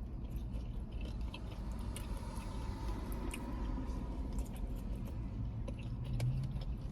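Chewing and biting into fried shrimp, with scattered small wet clicks, over a steady low room hum.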